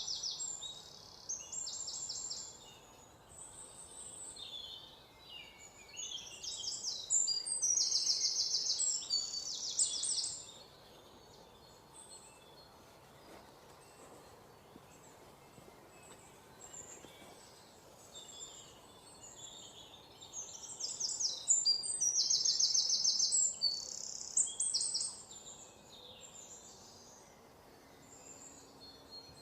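Forest ambience with birds singing: bouts of high, rapid trilling calls, loudest at the start, about a third of the way in and again after two-thirds, over a faint steady background.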